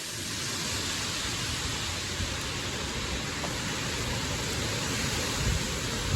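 Steady rain pouring down in a strong storm wind, an even hiss with a low rumble of wind underneath.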